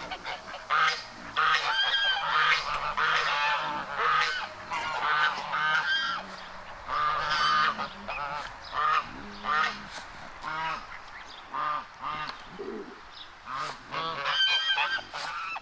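A flock of geese honking: many short calls overlapping in quick succession.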